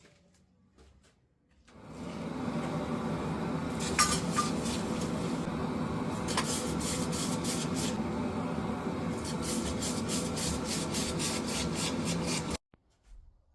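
Grinder working a forged steel blade: a steady motor hum under rhythmic scraping, about four strokes a second in two stretches. It starts about two seconds in and cuts off suddenly near the end.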